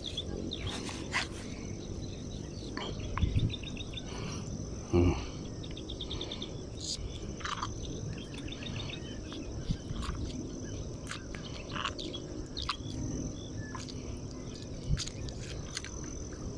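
Insects trilling steadily in a high thin whine, with short pulsed chirps and scattered bird calls. A few clicks and two louder thumps, about three and five seconds in, break it.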